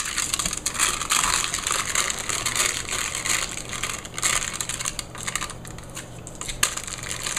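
Aluminium foil crinkling and crackling in a quick run of small irregular clicks as hands press and smooth a second layer of foil tight over a hookah bowl.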